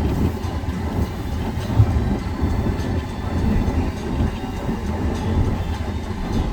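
Road noise inside a moving car: a steady low rumble of tyres and engine.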